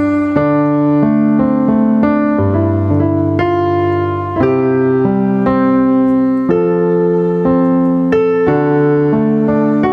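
Keyboard with a piano sound playing slow sustained chords that change about once a second, with no singing.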